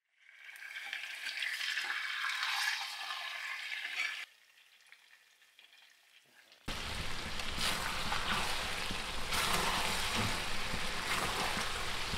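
Chicken pieces frying and sizzling in a pan as they are stirred. The sizzle fades in, drops away about four seconds in, and comes back louder near seven seconds with a low hum beneath.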